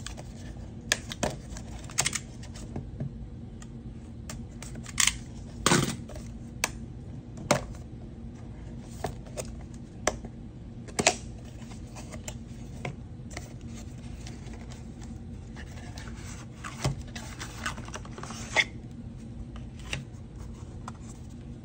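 Small cardboard product box being opened by hand: the inner tray slid out and the card and paper insert handled, giving irregular clicks, taps and short rustles.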